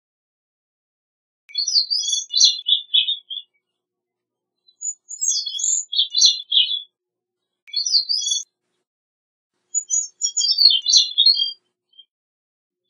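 Gray-cheeked thrush singing: four short phrases of quick, high, chirpy notes, each a second or two long, separated by silent gaps.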